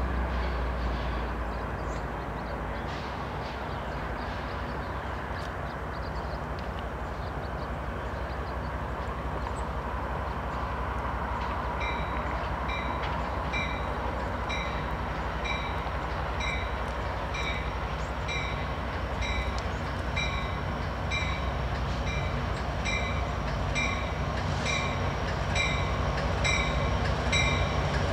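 Amtrak California passenger train led by an EMD F59PHI diesel locomotive approaching, a low rumble growing louder near the end. From about halfway through, a bell rings in a steady rhythm of strikes.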